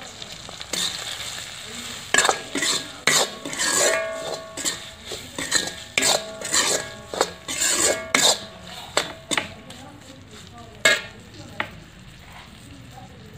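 Steel spoon scraping and knocking against an iron kadai while ground masala is stirred into frying brinjal, over a faint sizzle of oil. The strikes come in quick irregular runs, some ringing briefly, and stop near the end.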